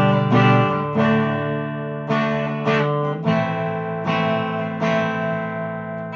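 Electric guitar, a Fender Player Telecaster on its Seymour Duncan bridge pickup, played through a clean Vox AC10 valve amp miked with an SM57: a string of strummed chords, each left to ring, about one every half second to second.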